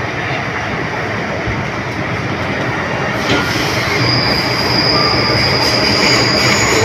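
MTR M-Train running at speed, heard from inside the carriage: a steady rumble of wheels on rail, joined about four seconds in by a thin, steady, high wheel squeal.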